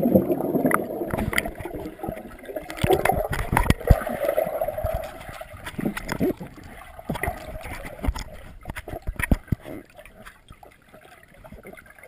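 Underwater sound through a GoPro Hero 2's waterproof housing: a bubbling rush from a dive dies away over the first two or three seconds, then scattered clicks and knocks as water and hands move around the camera.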